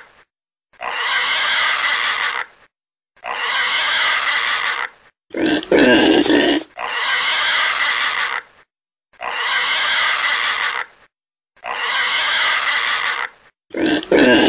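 Domestic pig grunting in repeated stretches of about a second and a half, broken by short silences. Twice, about five seconds in and again near the end, comes a louder, deeper burst.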